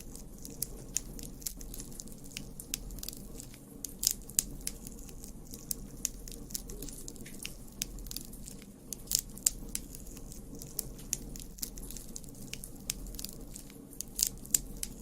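Campfire crackling: irregular sharp pops and snaps of burning wood over a low steady rumble of the flames.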